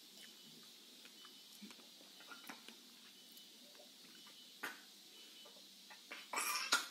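Faint scattered clicks and rustling of a cloth wiping a baby's mouth at a plastic high-chair tray, with one sharper click about two-thirds through and a short louder noisy burst near the end.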